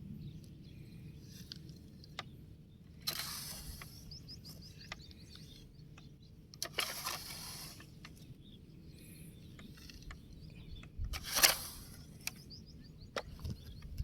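Plastic toy vehicles being handled as a toy train is loaded with a toy crane: scattered clicks and a few short scraping rattles, the loudest near the end.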